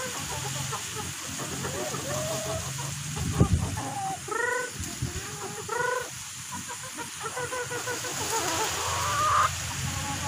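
Native chickens clucking and calling over and over in short pitched notes as they crowd round to be fed, with a rising squawk near the end. A single dull thump, the loudest sound, comes about a third of the way in.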